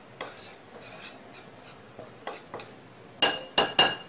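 Metal spoon stirring flour in a ceramic bowl, soft scraping strokes, then three sharp, ringing clinks of the spoon against the bowl a little after three seconds in.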